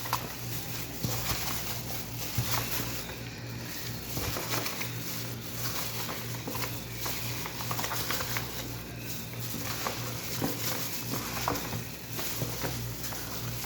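Hands mixing raw chicken pieces with ground spices in a bowl: soft, irregular wet squishing and patting, over a steady low hum.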